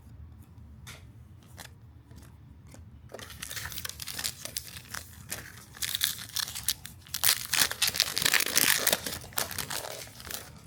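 A trading-card pack's wrapper being torn open and crinkled. A few light clicks come first, then the tearing and crinkling start about three seconds in, grow loudest past the halfway point and stop just before the end.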